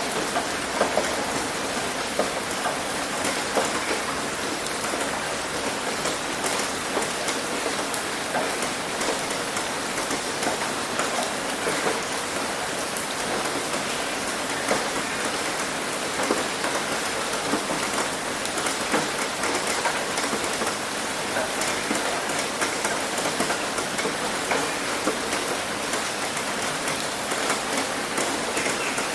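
Heavy rain drumming steadily on a roof: a dense hiss full of countless small, sharp drop impacts.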